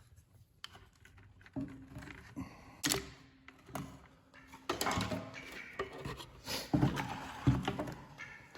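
Scattered knocks and clunks of a chainsaw and parts being handled on a work table, a few single knocks at first, then busier handling noise for the last few seconds.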